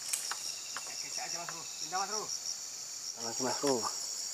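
A steady, shrill insect chorus with a fast pulsing shimmer. A sharp click comes just after the start, and a man's voice speaks a few short phrases in the middle and near the end.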